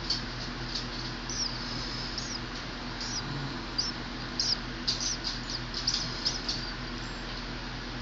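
A naked nestling bird begging with thin, high-pitched peeps: a scatter of short chirps, some sliding up and down in pitch, coming thickest in a quick run past the middle.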